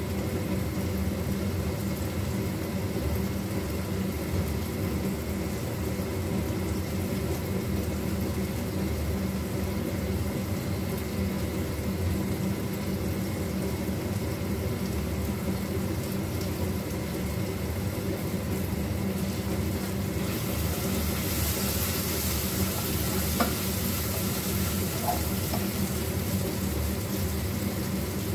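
Food frying in a pan on a gas stove: a steady sizzle under a steady low hum. The sizzle grows brighter about twenty seconds in.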